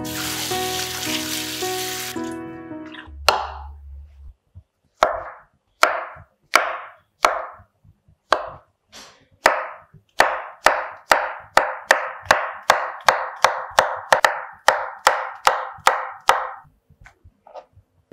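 A chef's knife slicing mushrooms on a plastic cutting board, each cut ending in a sharp knock with a short ringing tail. The knocks are scattered at first, then settle into a steady run of about two to three a second.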